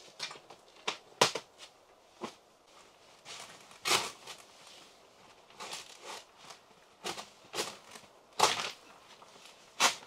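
A series of irregular crunches and knocks, about a dozen spread unevenly over several seconds, with quieter rustling between. The sharpest comes a little over a second in.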